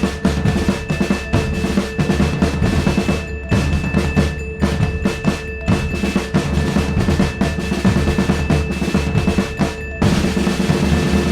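Background music: fast, dense drum rolls and pounding percussion over a held synth drone.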